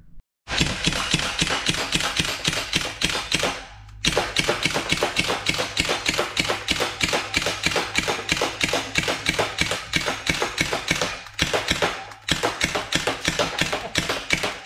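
MP40-style BB submachine gun firing in long rapid bursts: a fast, even clatter of shots. There are short breaks about four seconds in and again near eleven and twelve seconds.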